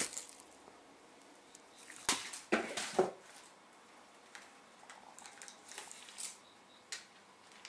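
Kasha Kasha Bun crinkle cat toy rustling in bursts about two to three seconds in, with a sharp knock among them, then faint light taps and rustles.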